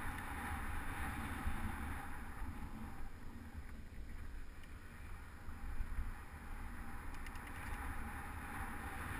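Wind rushing over the microphone and tyre rumble from a bicycle ridden along a road at night, dipping a little about four seconds in.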